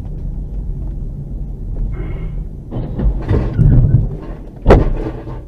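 Low steady rumble of a car driving, with a clattering, knocking stretch about three seconds in and a single sharp bang near the end, the loudest sound.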